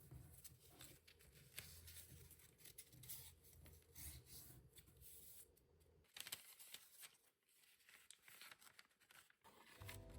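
Near silence: faint room tone with a low hum and small scattered clicks and rustles of handling, fading quieter after about six seconds; music comes in right at the end.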